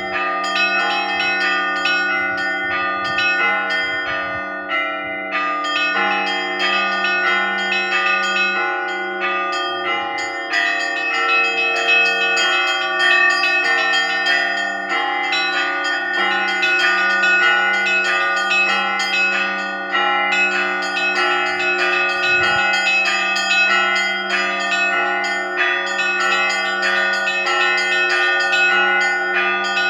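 Russian Orthodox church bells ringing: many bells of different pitches struck in a fast, dense pattern over the long sustained hum of the larger bells.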